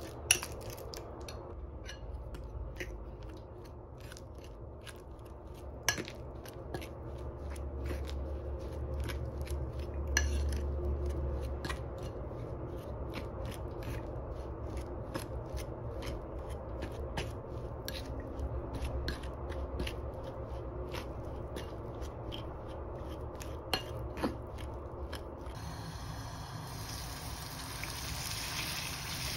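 Kitchen utensils clicking, tapping and scraping at irregular intervals over a steady low hum.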